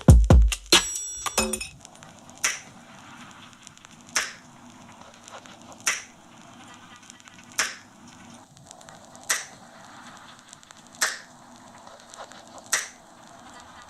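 Electronic music played back through a Harman Kardon Onyx Studio Bluetooth speaker, at a sparse break in the track. After a short burst of beat, there is a single sharp snap-like hit about every second and a half over a soft hiss.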